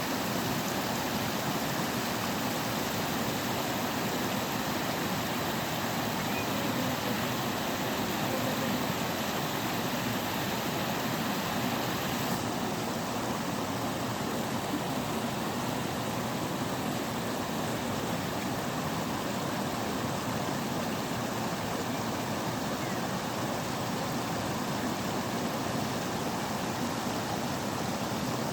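Natural waterfall: a steady, even rush of falling and splashing water.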